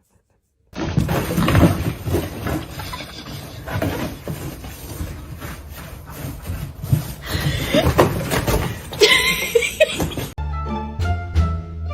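A loud, busy mix dominated by music, with a few short sliding squeals near the end of it; about ten seconds in it cuts abruptly to plucked string music with a bass line.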